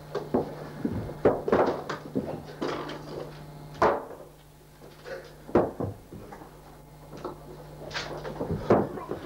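Interior wooden door being opened and shut, with a run of sharp knocks and bangs, the loudest about four seconds in and again near the end.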